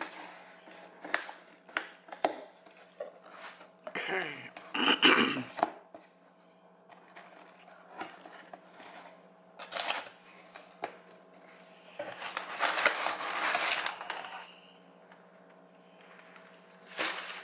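A cardboard shipping box being opened by hand: sharp taps and knocks on the cardboard, packing tape pulled away, and crumpled kraft packing paper rustling as it is lifted out. The handling comes in scattered knocks, with two louder noisy stretches, one about four seconds in and a longer one about two-thirds of the way through.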